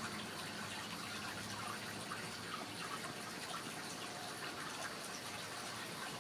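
Steady rushing hiss, like running water, with faint light scratching and rustling of kittens' paws on a cardboard tube.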